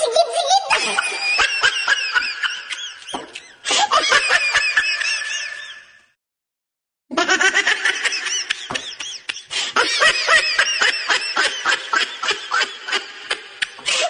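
Recorded laughter sound effects, one clip after another: high-pitched laughing that changes abruptly to a new laugh about three and a half seconds in and fades out around six seconds, a second of silence, then another long fit of quick, repeated ha-ha laughter.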